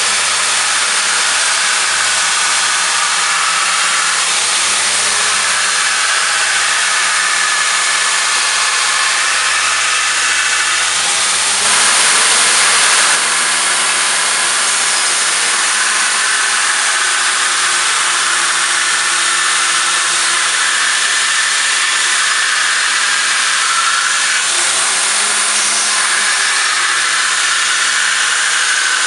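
Fire Ant belt grinder running with a steel sword blade pressed against its abrasive belt: a steady, loud grinding hiss as the steel is ground, throwing sparks, briefly a little louder about twelve seconds in.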